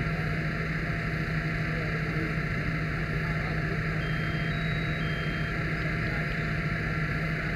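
Steady drone of a fire engine running at a structure fire. About halfway through, a faint electronic beep sounds three times, alternating low-high-low.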